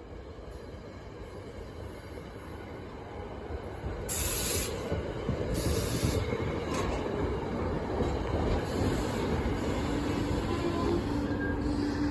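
Train running past on the rails, its rumble building. About four seconds in the sound jumps louder, with two short hissing blasts, and a steady low tone comes in near the end.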